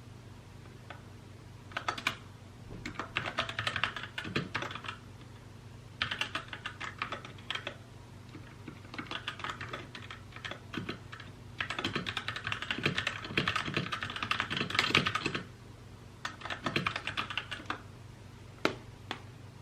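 Typing on a mechanical keyboard: runs of rapid key clicks in several bursts with short pauses between, the longest run from about 12 to 15 seconds in, and a single key press near the end. A faint steady low hum sits underneath.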